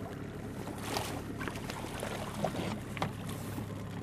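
A hooked salmon splashing at the surface beside the boat as it is brought to the landing net, with a steady low hum underneath.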